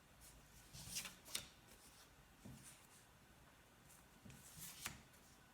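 Near silence with a few faint rustles and taps of paper flashcards being handled, about a second in and again near the end.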